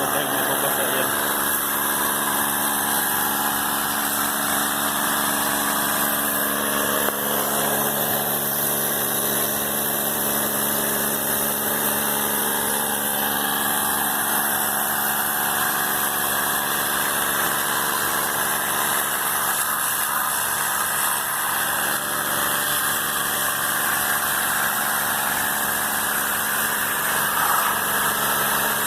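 A motor-driven machine running steadily: a constant hum with a steady hiss over it.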